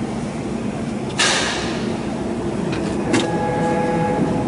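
CNC router's Z-axis stepper drive starting with a click about three seconds in and whining with a steady tone as the spindle lowers the bit toward a brass touch-off plate to set the tool height. Before it, a short loud hiss about a second in, over a steady low machine hum.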